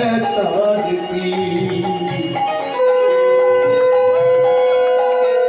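Devotional music with singing and bells ringing; about halfway through, a single long steady note comes in and holds.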